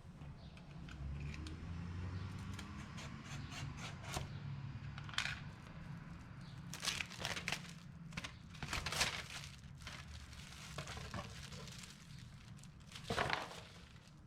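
Hands working on an engine's opened clutch side: scattered light clicks and rustling over a low, steady hum.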